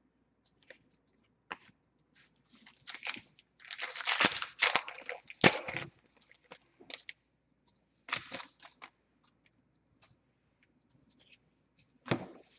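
Foil wrapper of a hockey card pack being torn open and the cards handled, in irregular rustling and crinkling bursts, most of them in the first half.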